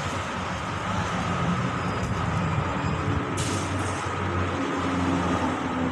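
Steady road traffic noise with the hum of a large vehicle engine and a short hiss about three and a half seconds in.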